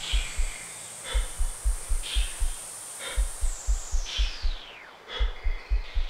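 Electronic music played live on analog modular synthesizers: a deep bass pulse beating in quick runs, a short noisy hit about once a second, and a high held tone that glides steeply down about halfway through.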